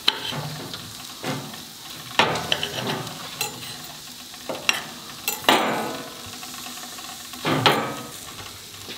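Steel knife sawing through seared venison backstrap and scraping on a ceramic plate, with fork tines tapping the plate: a series of short scrapes and clicks over a steady hiss.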